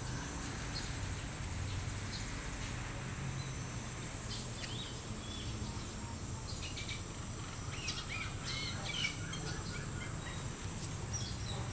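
Small birds chirping in scattered short high calls, busier in the second half, over a steady low background hum.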